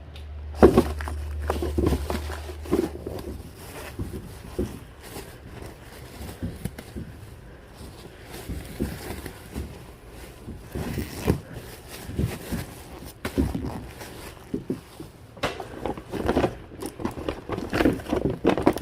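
Items being handled and rummaged through while unpacking: irregular rustling, knocks and shuffling, with a low hum in the first couple of seconds.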